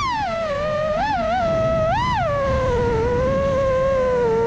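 FPV quadcopter's brushless motors whining, the pitch falling at the start, then three quick throttle blips in the next two seconds before settling to a steadier, lower whine over a rough low rumble.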